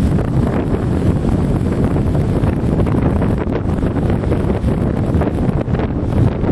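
Wind buffeting the microphone: a loud, unsteady low rumble with no distinct events.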